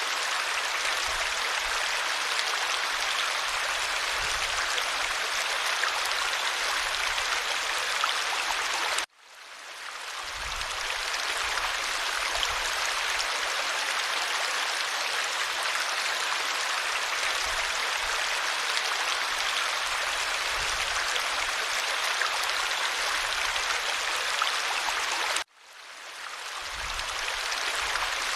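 Clear stream flowing with a steady, even rush of water. The sound cuts out suddenly twice, about nine seconds in and near the end, and swells back in over a second or two each time.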